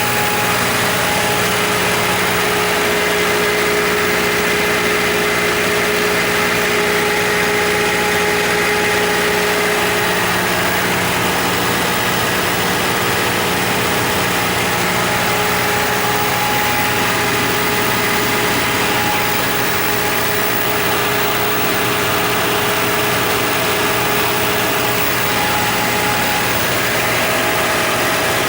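Iveco/FPT 4.5-litre diesel engine of a Generac SD080 80 kW generator set running steadily at constant governed speed, with a steady whine above the engine note.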